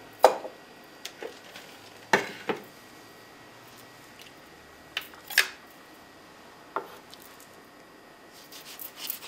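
Kitchen things being handled and set down on a wooden counter and cutting board: a scattering of sharp knocks and clinks from a ceramic bowl, a wooden lemon reamer and a knife, about eight in all, the loudest just after the start and about two seconds in, with a run of small clicks near the end.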